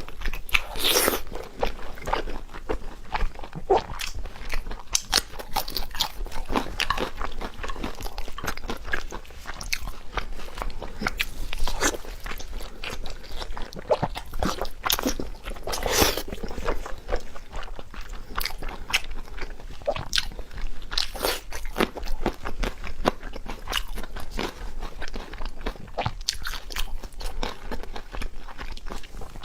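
A person biting and chewing crunchy food close to the microphone, making a continuous stream of crisp, irregular crunches.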